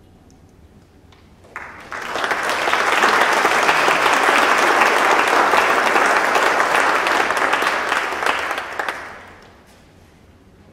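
Congregation applauding. It starts about a second and a half in, holds steady, and dies away shortly before the end.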